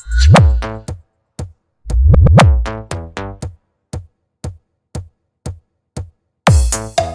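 Electronic bass-heavy battle remix of the sound-check kind: long deep bass booms twice in the first few seconds, then sharp clicks about two a second, and another bass boom near the end.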